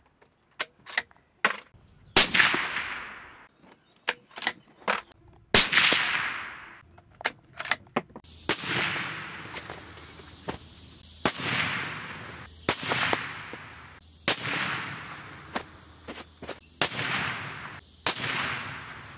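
Suppressed .308 Winchester bolt-action rifle (Ruger American with a SilencerCo Hybrid 46 suppressor) fired at ballistics gel. Two shots come about three seconds apart with small metallic clicks between them as the bolt is worked. From about eight seconds in, six more shots are heard from the target end, each trailing off in a long echo over a faint steady high tone.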